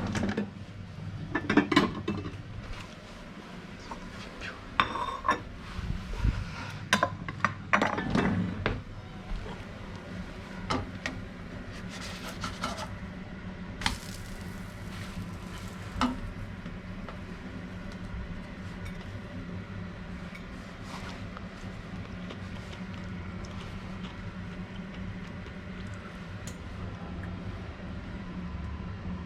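Kitchen utensils and dishes clinking and knocking, busiest in the first dozen seconds and sparser after, over a steady low hum.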